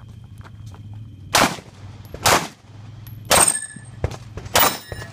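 Four gunshots about a second apart, with a brief ring after the last two.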